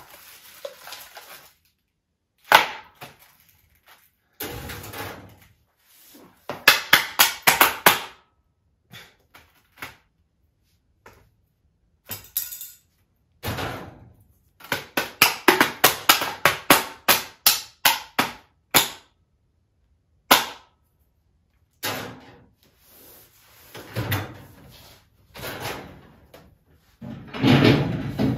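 Sharp taps and clicks on a plastic TV dinner tray, played as short rhythmic runs of quick strokes, about four to five a second, each cut off by sudden silence. Near the end comes a louder, fuller clatter as the microwave oven door is handled.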